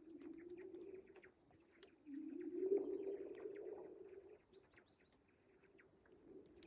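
Lake ice cover in spring thaw singing: a low humming moan that swells about two seconds in, gliding up in pitch as it starts, and fades out near the middle, over a steady fine crackling of many small ticks.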